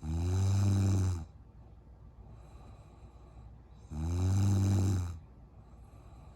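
A sleeping woman snoring: two long, low snores about four seconds apart, each lasting a little over a second.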